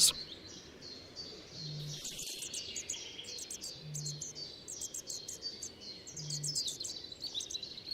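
Small songbird calling in a quick series of short, high chirps, each sliding down in pitch.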